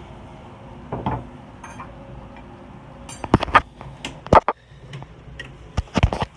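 A mixing utensil knocking and clinking against a bowl as slime is stirred: a single knock about a second in, then a quick run of sharp knocks from about halfway.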